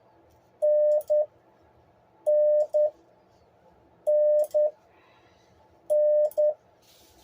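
The Morse code letter N, dah-dit (one long beep, then one short beep), sent four times in a steady rhythm on a paddle key. It is a single steady mid-pitched tone, with faint clicks from the paddle as each beep is keyed.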